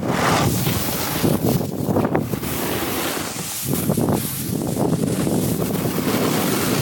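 Wind buffeting the camera microphone as a snowboard slides and carves over groomed snow: a steady, loud rushing noise that swells and dips with the turns.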